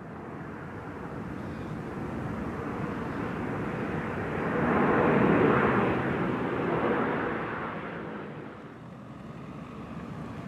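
A vehicle passing by: a rushing noise that builds to a peak about five seconds in and then fades away.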